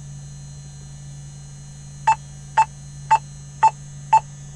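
Main electric pitch trim of a King Air B100 running nose up: a steady low motor hum. About two seconds in, the trim's warning beeper joins with five short high beeps, about half a second apart.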